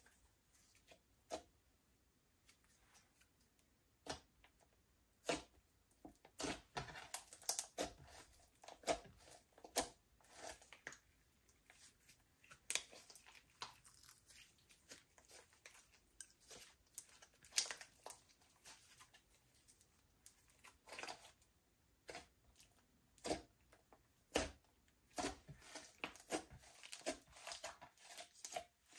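Slime being kneaded and stretched by hand, giving faint, irregular sticky pops and crackles, some in quick clusters.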